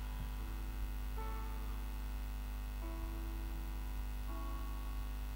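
Soft background music of slow, sustained chords that move to new notes every second or so, over a steady low mains hum.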